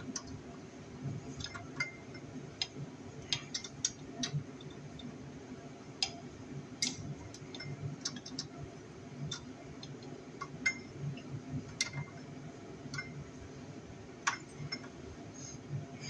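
Irregular small metallic clicks and ticks from a stubby screwdriver working the terminal screws on a Hobart mixer's motor terminal block, with wires being handled.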